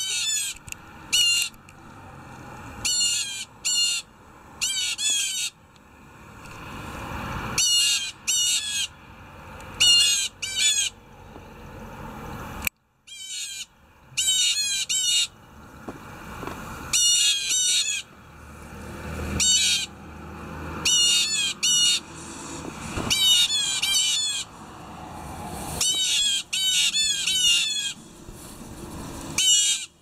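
Blue jays calling loudly, in quick runs of two to four calls repeated every second or two, with a short break a little before halfway.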